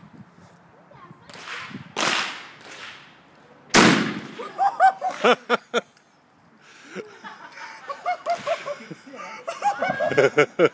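A single shot from a Benelli Nova 12-gauge pump shotgun firing a 3.5-inch magnum turkey load, one sharp, very loud blast about four seconds in. Voices and laughter follow.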